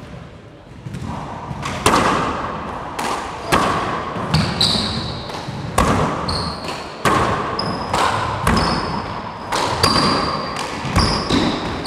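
Four-wall handball rally: the small rubber ball struck by gloved hands and rebounding off the walls and floor, about a dozen sharp hits that ring in the enclosed court. Short high squeaks of sneakers on the hardwood floor come in from about four and a half seconds in.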